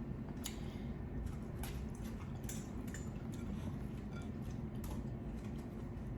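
Faint clicks and clinks of dishes and utensils being handled at the table, over a steady low background hum.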